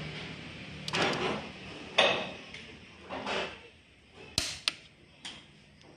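Hand tools working the cylinder-head bolts of a Hino J08E diesel engine during the first 7 kg torque stage: a few short scraping bursts of the wrench and socket, then several sharp metal clicks near the end.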